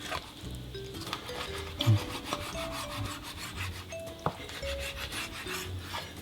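Sharp kitchen knife sawing through a whole salmon into half-inch slices: repeated rasping strokes, with knocks on the chopping board and one louder knock about two seconds in.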